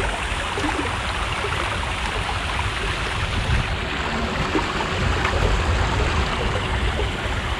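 Steady rushing and trickling of water in a geothermal hot spa pool, close to the microphone.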